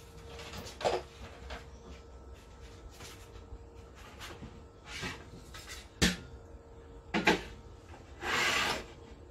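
Scattered knocks and clicks of objects being handled, the sharpest about six seconds in and two close together just after, then a brief rubbing scrape near the end, over a faint steady hum.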